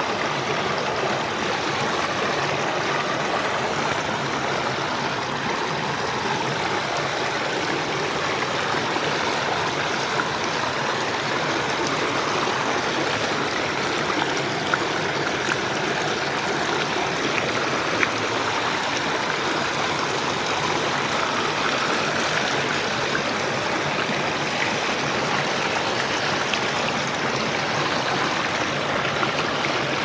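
Shallow stream flowing over smooth bedrock around wading feet: a steady rush of running water, with a few brief ticks now and then.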